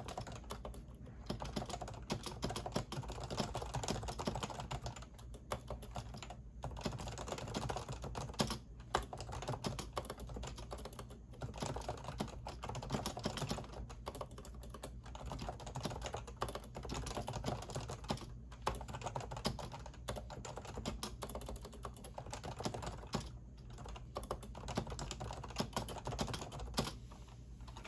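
Fast, continuous typing on a Topre REALFORCE keyboard with electrostatic capacitive switches, keystrokes running close together with a few short pauses.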